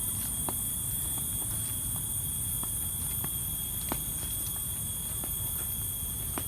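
Footsteps on the ground, irregular snaps and crackles a few times a second, over a steady high-pitched insect chorus.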